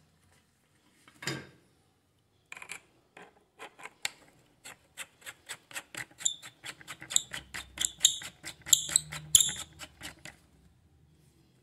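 White plastic lightsaber blade being twisted into its metal hilt by hand: a long run of short scraping strokes, about five a second, growing louder, after one brief swish about a second in.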